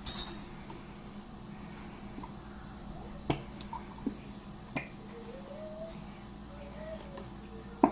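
Scattered sharp light clicks and taps of craft supplies being handled while slime is mixed, about five in all, with a brief rush of noise at the very start.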